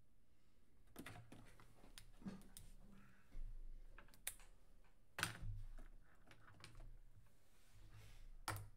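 Computer keyboard being typed on: irregular keystrokes and clicks, a few of them louder than the rest.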